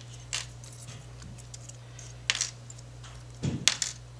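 Light metallic clicks of thin aperture blades being knocked out of a Nikon 50mm f/1.4 AI-S lens's iris housing: a single click early, another a little over two seconds in, and a quick cluster near the end, over a steady low hum.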